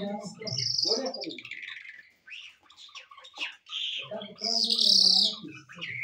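A caged lark singing: a varied run of short high chirps, trills and warbles, loudest about five seconds in. A lower, voice-like sound comes near the start and again past the middle.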